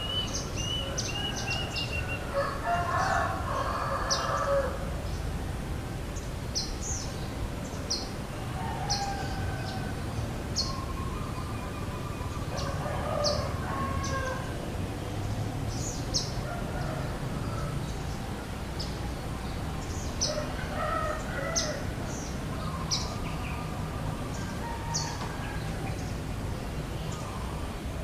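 Roosters crowing several times in the background, each crow a second or two long, with short high bird chirps repeating about once a second throughout.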